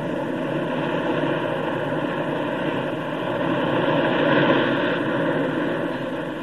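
Ocean surf breaking on a rocky, pebbly shore: a steady rushing wash that swells about four seconds in.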